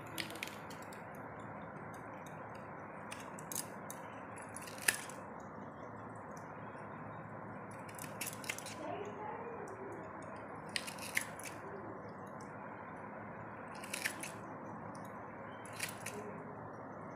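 Handheld plastic vegetable cutter squeezed shut through a potato: a sharp click-snap every two to three seconds, about seven in all, the loudest about five seconds in, over a steady background hiss.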